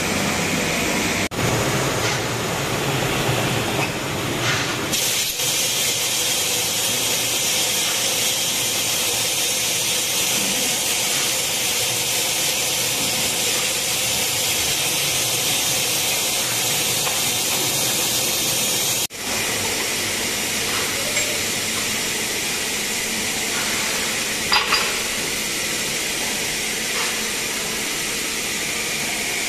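Steady hiss of steam from a tyre-curing mould press, with a couple of light metallic clinks about 24 seconds in.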